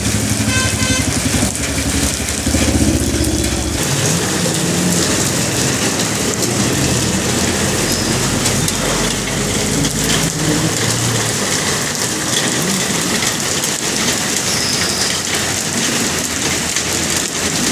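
Hail pelting down hard, a dense, steady clatter of countless small impacts. A low hum sits under it for the first few seconds.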